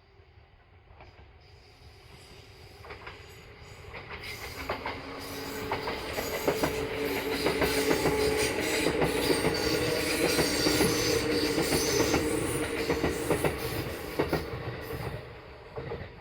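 Kintetsu electric train passing. The wheels click over the rail joints with a steady tone running under them. The sound grows louder, stays at its loudest for several seconds in the middle, then fades away near the end.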